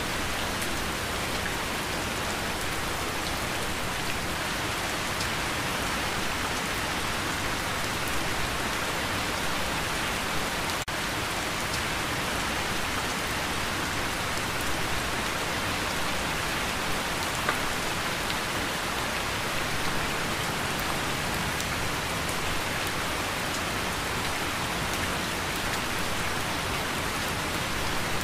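Steady rain, an even hiss with scattered drop ticks, with a momentary dip about eleven seconds in.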